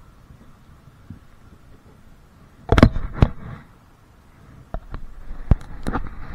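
A handful of sharp knocks and clunks from gear being handled in a small boat: a burst of them about three seconds in, then single knocks spaced about a second apart toward the end.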